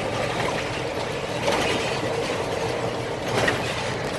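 Scania 113 360 truck's straight-six diesel running on the road, a steady engine and road noise, with short rattles about one and a half and three and a half seconds in.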